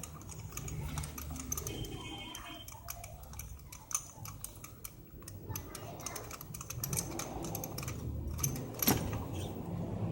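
Socket ratchet clicking and metal tools clinking while spark plugs are unscrewed from the engine, a string of irregular small clicks with a sharper click near the end.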